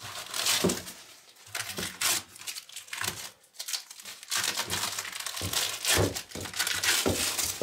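Masking tape and paper masking being peeled off a spray-painted 3D-printed plastic prop and crumpled, giving an irregular run of crinkling and short tearing strokes.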